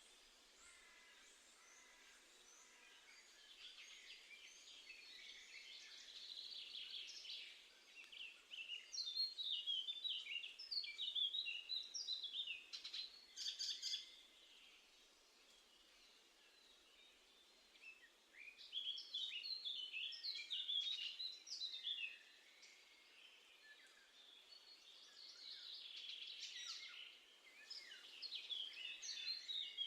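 Songbird singing outdoors: four long song phrases of quick high notes, a few seconds apart, with faint background noise between them.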